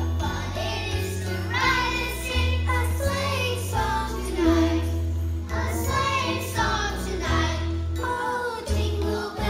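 Children's choir of third graders singing a Christmas song together over instrumental accompaniment with a steady bass line.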